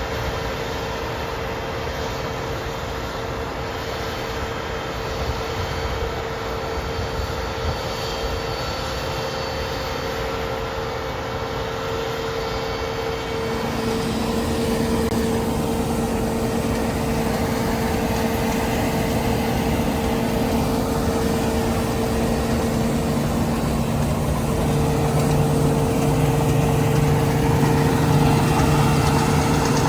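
John Deere T670 combine harvester running steadily under load, a constant engine and machinery drone with a level hum. About 13 seconds in the sound shifts and grows a little louder with a new lower hum, and a deeper hum joins about 23 seconds in.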